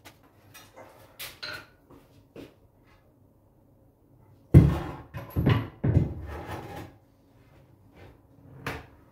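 Ceramic washbasin being set down onto a wooden vanity cabinet and shifted into position: a heavy knock about four and a half seconds in, followed by a couple of seconds of knocking and scraping, with lighter knocks before it and one more near the end.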